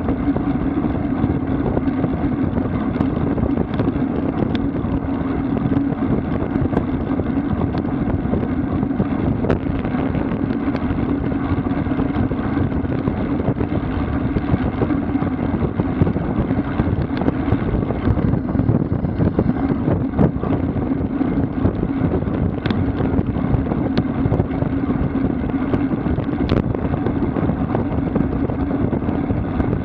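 Wind rushing over the microphone and road noise from riding a road bike at speed. It is a steady, even rush with a constant low hum under it and a few faint clicks.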